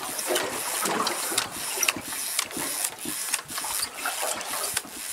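Fishing reel being cranked quickly, a steady mechanical whirr with regular clicks, as a jig is wound back up from deep water.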